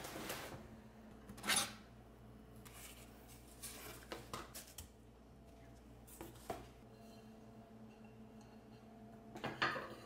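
Cardboard box flaps and packing rustling and knocking, then white ceramic dinner plates handled and set down, clinking against one another near the end.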